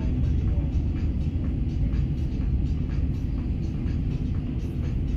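Steady low rumble of a KLIA Transit electric train running at speed, heard from inside the passenger cabin.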